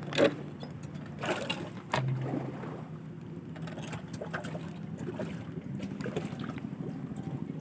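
A boat engine running steadily as a low hum, with a few knocks and clatter of handling against the wooden boat near the start.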